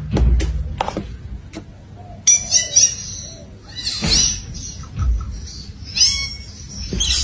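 A few sharp taps, then a parakeet's short, high-pitched chirps and squawks, one every second or two from about two seconds in.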